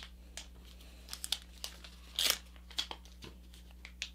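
Folded paper rustling and crinkling as hands work and crease the thick layers of a paper airplane, in scattered short crackles with one longer rustle about halfway through.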